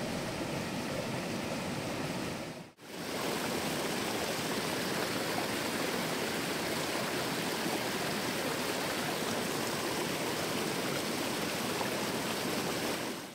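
Steady rushing of flowing stream water, an even noise that drops out for a moment just under three seconds in.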